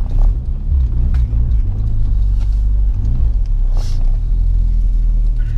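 Turbocharged GA16DE 1.6-litre four-cylinder engine of a Nissan Sentra running under way, heard from inside the cabin as a steady low rumble whose pitch shifts slightly a couple of times.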